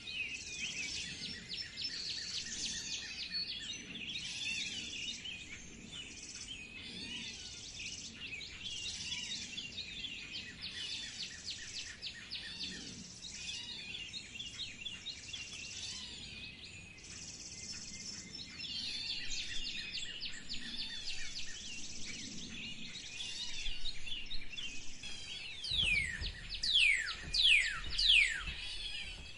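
A chorus of many songbirds chirping and twittering at once. Near the end a few loud, steeply falling whistled calls stand out above the chorus.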